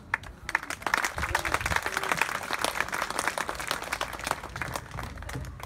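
Audience applauding: many hands clapping that start about half a second in, build quickly, and thin out near the end.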